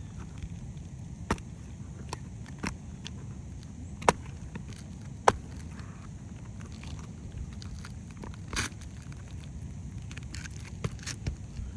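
Scattered sharp knocks and taps of hand tools working on asphalt shingles during a roof repair, the two loudest about four and five seconds in, with a longer scrape about eight and a half seconds in. A low steady rumble runs underneath.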